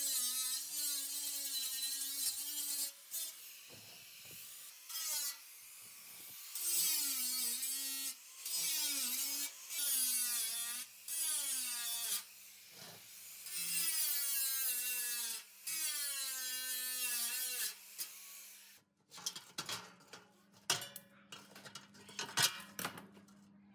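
Angle grinder cutting at the steel rim of a rusty fan housing to free the wire guard, in a series of short cuts, its pitch sagging as the disc bites into the metal. In the last few seconds come scattered metal clinks and knocks as the guard is handled.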